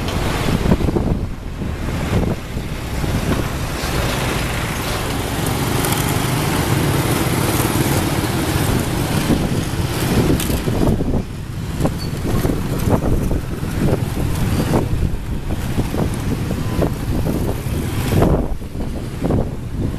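Loud, steady rumble of a passing or running vehicle, with a run of sharp clicks and knocks through the second half.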